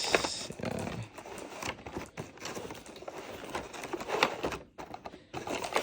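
Handling noise while unboxing: irregular knocks, taps and rustles of a box and its packaging being opened.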